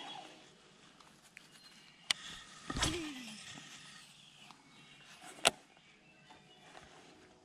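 A cast with a baitcasting rod and reel: a sharp click, then about three seconds in a whoosh with a whir falling in pitch as the spool spins out line, and a louder sharp click about five and a half seconds in.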